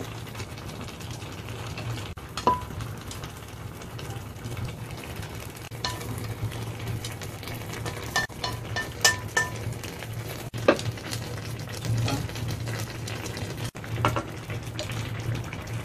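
Food being pushed off a plate into a simmering clay pot with chopsticks: a steady bubbling hiss and low hum, with scattered clinks of the utensils against the plate and pot, including a quick run of about four ringing taps about eight seconds in.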